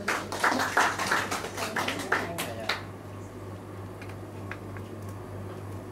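Scattered applause from a small audience, dying away about three seconds in, leaving a low steady hum.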